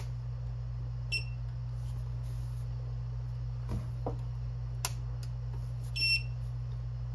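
Bench DC power supply beeping as its buttons are pressed, a short beep about a second in and a longer one about six seconds in, with a few clicks from its controls over a steady low hum.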